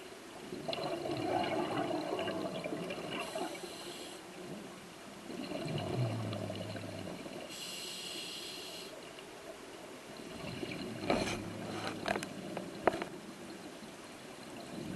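Scuba diver breathing through a regulator underwater: two bubbly exhalations, each followed by a short hissing inhalation. A few sharp clicks come near the end.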